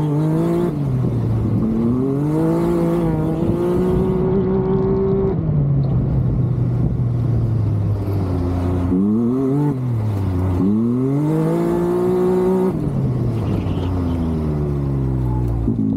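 Can-Am Maverick X3's turbocharged three-cylinder engine driven hard through a cone course, its pitch climbing and dropping again and again as the throttle goes on and off through the turns.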